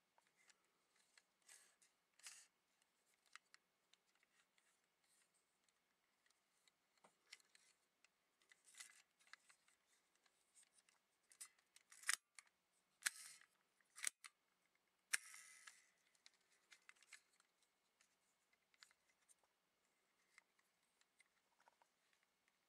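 Hard plastic parts of a Sakura Hurricane Lockvehicle 01 toy clicking and snapping as it is handled and its shackle and panels are folded. Mostly faint scattered clicks, with a few sharper snaps around the middle.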